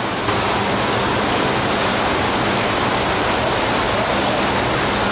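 Steady rush of churning seawater along the side of a moving ship.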